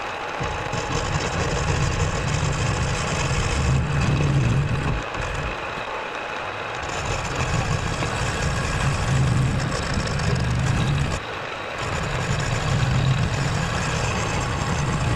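Milling machine spinning a ball-ended cutter into the casting of a Toyota 5S-FE engine block, machining away material to clear the oil pump. The motor runs steadily while the grinding of the cut comes and goes in three passes, easing off about five seconds in and again about eleven seconds in.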